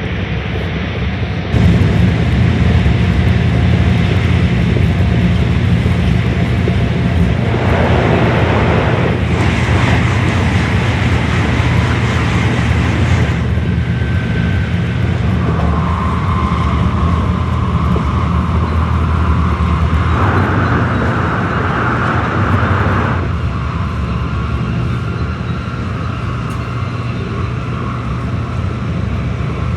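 Shinkansen train running, heard from inside the car: a steady low rumble with two stretches of louder rushing noise, and a steady whine that sets in about halfway.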